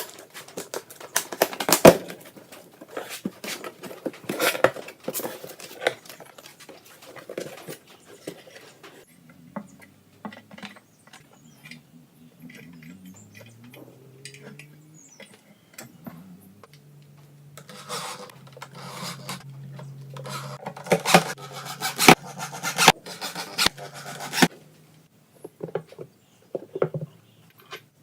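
Handling noise of rubbing, tapping and small knocks on wood. Partway through, a low hum comes in, rises in pitch and then holds steady for several seconds with clicking over it.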